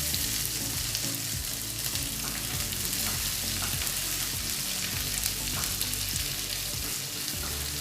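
Sliced onions frying in hot oil in a pan with mustard seeds, dried red chillies, curry leaves and crushed garlic: a steady sizzle as the onions are sautéed until they wilt.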